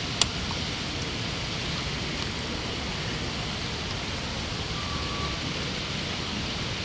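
Steady outdoor background noise, an even hiss and rumble like distant city traffic, with one sharp click shortly after the start.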